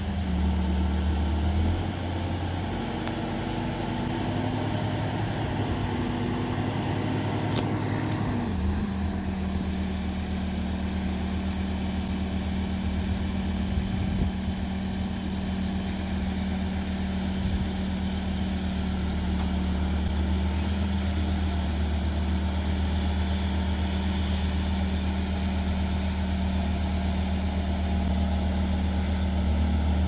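Case TV450 compact track loader's diesel engine running steadily with a pallet load raised on its forks. About two seconds in the engine note shifts for several seconds, then settles back to a steady run.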